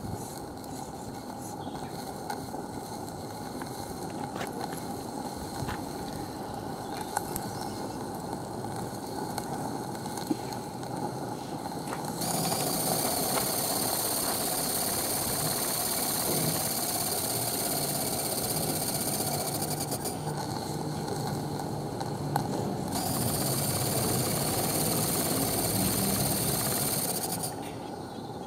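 Maxitrak 3/4-inch scale live-steam traction engine standing in steam, with a steady low hiss and faint ticks. About twelve seconds in a loud high steam hiss starts suddenly and runs for about eight seconds, stops, then comes back for about four seconds near the end.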